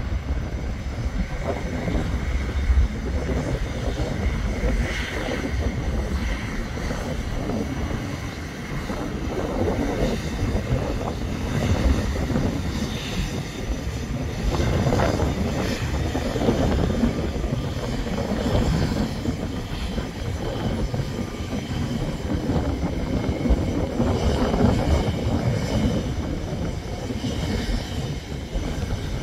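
Jet engines of a Qatar Airways Airbus A350-1000, Rolls-Royce Trent XWB turbofans, giving a steady, rough rumble with no clear rise or fall.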